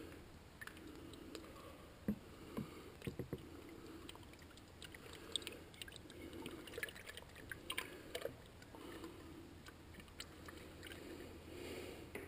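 Faint trickle of oil poured from a bottle into an old windmill's open gearbox and onto its gears, with scattered light clicks and ticks.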